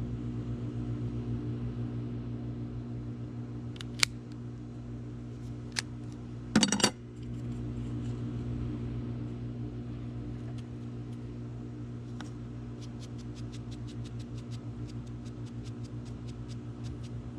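Sharp metallic clicks and snaps from a cigar cutter and torch lighter being worked, the loudest a quick double snap about seven seconds in, followed near the end by a run of faint fast ticking, over a steady low hum.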